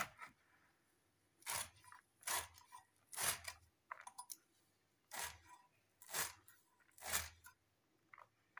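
Young bottle gourd leaves being sliced on a boti, a fixed upright cutting blade, each bunch drawn against the edge with a short crisp crunch, about one cut a second.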